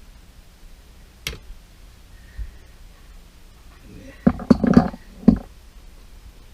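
Clicks and knocks of hard parts being handled inside a dishwasher under repair: one sharp click about a second in, then a quick cluster of knocks and clatter past the middle, and one last knock.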